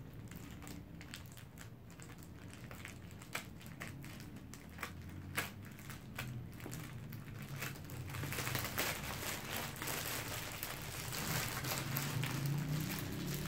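Scissors snipping through a clear plastic bag, with scattered sharp clicks and crackles. About halfway through, the loosened plastic wrapping crinkles more densely and louder as it is pulled and handled.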